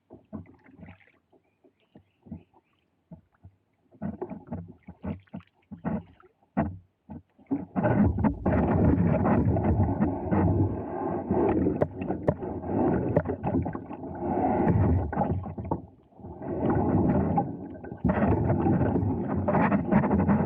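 A kayak moving on a shallow creek: scattered knocks and splashes at first, then from about eight seconds in a dense, loud run of water and hull noise, dipping briefly near the end before picking up again and cutting off suddenly.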